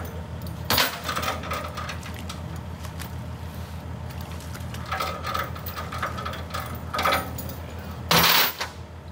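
Excavator's diesel engine idling steadily, with metallic clanks and knocks as hooks and lifting straps are worked on a metal fish-trap box. There are four of them, and the loudest comes near the end.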